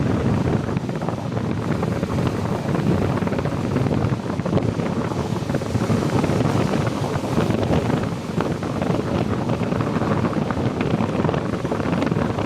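Wind blowing hard across the microphone: a continuous, gusty rush of noise with constant buffeting.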